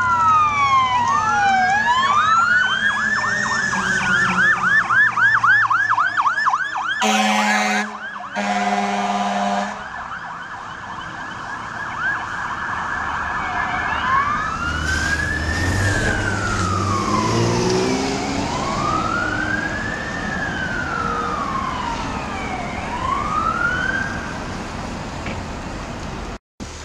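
Fire engine siren switching from a slow wail to a fast yelp, with two long air horn blasts about seven and eight and a half seconds in. Later a siren wails in slow rising and falling cycles over the low rumble of a truck engine.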